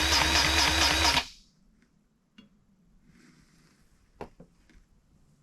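Power drill spinning the steering rack's pinion through a drive fitted loosely over its splines, turning the pinion over to work in the fresh grease; it runs steadily with a regular warble, then stops about a second in. A faint click and a knock follow.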